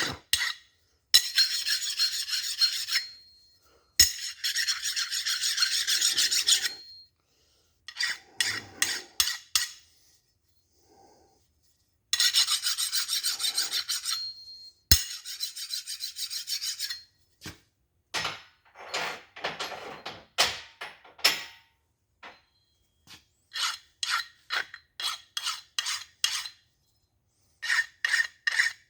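A hand file rasping along the edges of a steel connecting rod to deburr and round them: some long strokes and runs of quick short strokes, with pauses between. A couple of sharp metallic clinks.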